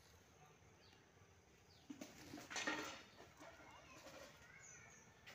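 Faint bird calls over quiet garden ambience, with pigeons cooing from a wooden dovecote. A brief rustling noise about two and a half seconds in is the loudest sound.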